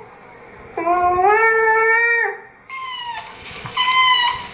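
Long drawn-out cat meows from a cat video playing on a tablet, then high, steady whining from a Doberman near the end, twice.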